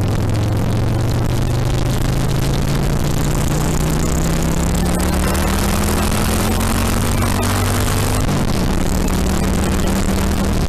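2007 Harley-Davidson Sportster XL1200R's 1200 cc V-twin engine pulling under way, its pitch climbing steadily as the bike accelerates. About eight seconds in the pitch drops suddenly with a gear change and then holds steady, over a constant rush of wind.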